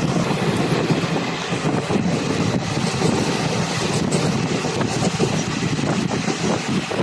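Moving train heard from on board: a steady rumble and rattle of wheels running on the rails, with some wind noise on the microphone.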